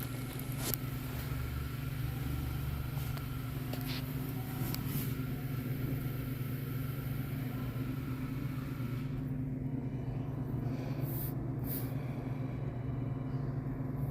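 Car engine running with a steady low hum, with a few faint clicks over it.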